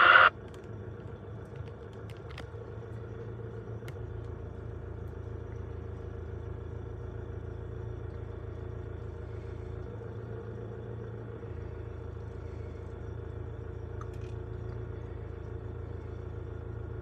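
Heavy diesel engine idling steadily, a low even rumble heard from inside a truck cab. A loud hiss cuts off right at the start.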